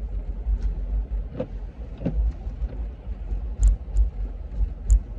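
Car interior road noise while driving, a steady low rumble, with a few short ticks scattered through it.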